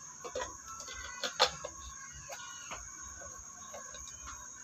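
Chickens clucking in short scattered calls over a steady high chirring of crickets, with one sharper call about a second and a half in.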